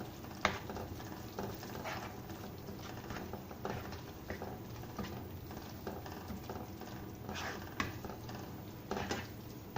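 Thick spice-and-tomato masala cooking in a wok with a low steady bubbling, while a utensil stirs it, giving irregular clicks and scrapes against the wok.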